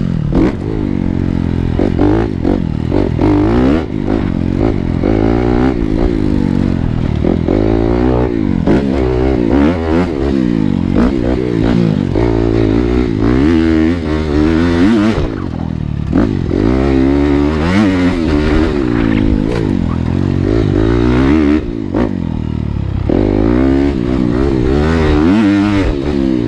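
Dirt bike engine being ridden hard, its pitch rising and falling over and over as the throttle is opened and shut, with knocks and rattles from the bike over rough, rocky ground.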